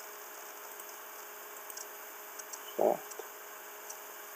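Steady faint microphone hiss with a few soft clicks of a computer mouse, and one brief low voice sound, like a short hum, nearly three seconds in.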